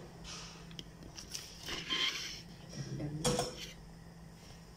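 Kitchenware being handled around a gas stove: a few short knocks and scrapes, the loudest a little after three seconds in, over a faint steady hum.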